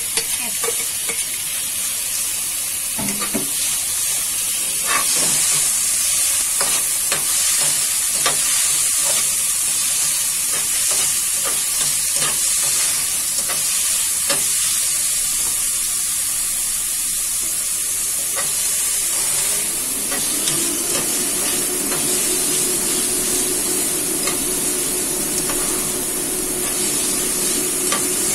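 Chopped chicken and green onion sizzling in hot oil in a nonstick frying pan, stirred with a spatula that clicks and scrapes against the pan.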